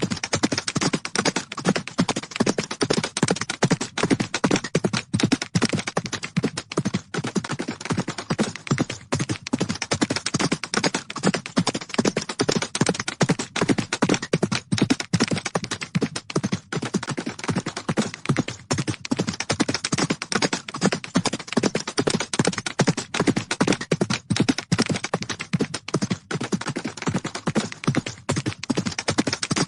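Horses galloping: rapid, continuous hoofbeats, a dense run of closely overlapping hoof strikes.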